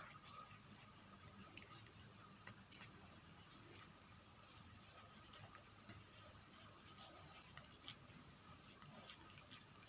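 Faint, sparse wet clicks of a cat licking and chewing food, over a steady high-pitched whine.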